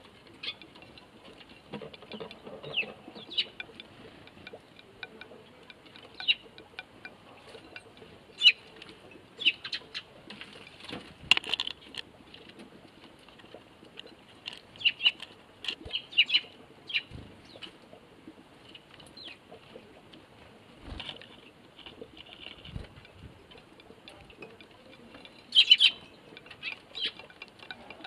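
Eurasian tree sparrows chirping in short, scattered calls at a seed feeder, with wing flutters as birds land and take off. A louder cluster of chirps comes near the end as more sparrows arrive.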